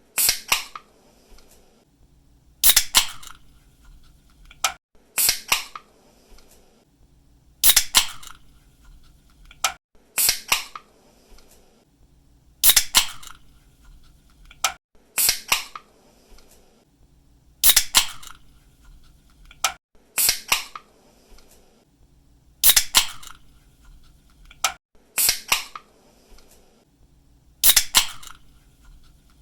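Soda or energy-drink can's pull tab snapped open again and again. Each opening is a sharp crack followed about half a second later by a second burst, repeating about every two and a half seconds.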